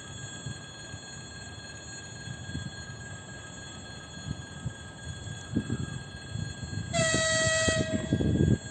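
Ivolga electric train sounding one horn blast of just under a second near the end, a single steady pitch with a stack of overtones, over a low, uneven rumble.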